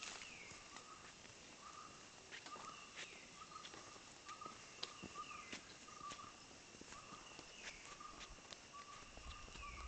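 Faint forest wildlife calls: a short note at one steady pitch repeating about twice a second, and a falling whistle every two to three seconds over a steady high tone. Faint clicks of footsteps on the trail.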